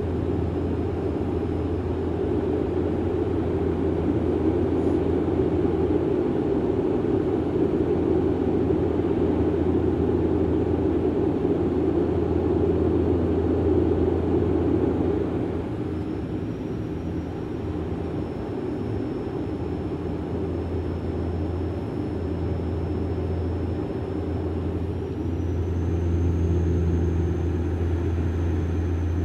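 Cabin noise of a Bombardier Dash 8 Q400 turboprop in flight: a steady low drone from its Pratt & Whitney PW150A engines and propellers. The drone eases about halfway through, when a thin high whine comes in that steps up in pitch near the end.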